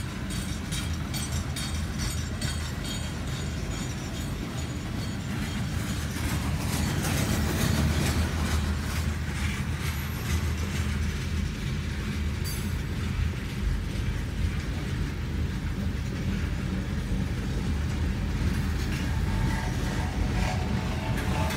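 Freight cars of a long CSX train rolling past a grade crossing, heard from inside a car: a steady low rumble of wheels on rail with frequent clicks from the wheels and couplings.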